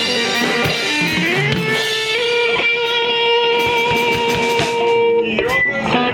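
Rock band playing live: electric guitar and drum kit. A long note slides up in pitch about a second in, is held for about four seconds and then breaks off, over steady drum hits.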